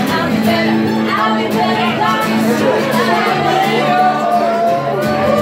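Live acoustic folk music: a woman singing over strummed acoustic guitar chords.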